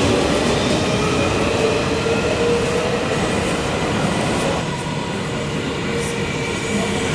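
Helsinki Metro train running through an underground station: a steady rumble of wheels on rail with a few steady whining tones over it, easing slightly about four and a half seconds in.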